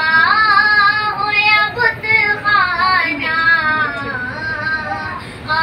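A high voice singing a naat, a devotional song, in a flowing melody that glides between notes and holds them, with a short break near the end.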